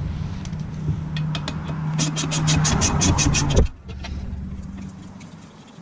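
Ratchet wrench clicking quickly and evenly as a motorcycle's 10 mm chain adjuster nut is tightened, over a steady low hum that cuts off suddenly about two thirds of the way in.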